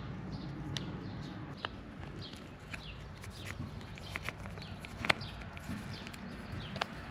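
Scattered small clicks and taps of plastic switch parts being handled and fitted as a motorcycle turn signal switch assembly is put back together, with one sharper click about five seconds in.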